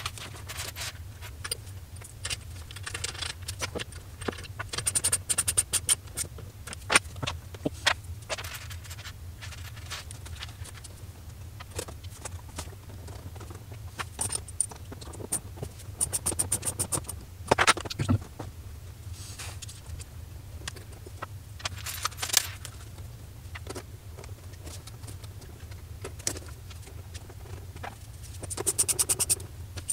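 Small steel bolts, nuts and ring terminals clinking and rattling as they are handled and threaded together. There are several short runs of rapid ratchet-wrench clicks as the nuts are tightened, over a steady low hum.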